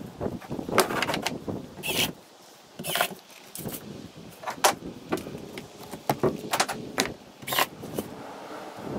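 Irregular knocks, clicks and clatter of hand tools and a wooden shed door panel being handled, with a tool belt rattling, over a low background rumble.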